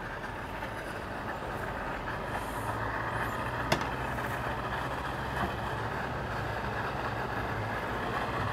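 An engine idling with a low steady hum that comes in about two and a half seconds in, over outdoor background noise, with a single sharp click near the middle.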